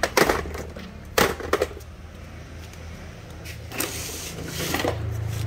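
Used plastic power-tool battery packs being handled and set down, giving a few sharp clacks over a low steady hum that grows louder near the end.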